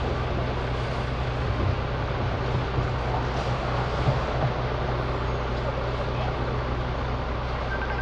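Garbage truck's engine running steadily at idle, a constant low hum under busy street noise, with a brief sharp sound about four seconds in.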